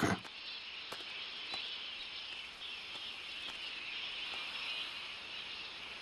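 Steady, high-pitched chorus of insects in tropical forest.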